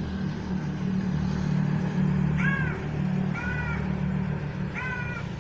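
A crow cawing three times, each call short and arched in pitch. A steady low hum runs underneath.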